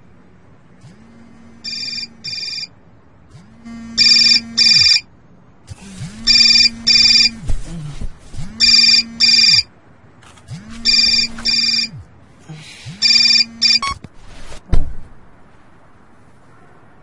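Alarm clock ringing in pairs of short electronic beeps, six pairs about two seconds apart, the first pair quieter than the rest. A single thud follows shortly after the last pair.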